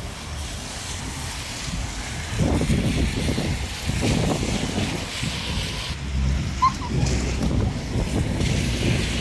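Wind buffeting the microphone in gusts, over the noise of street traffic on wet roads.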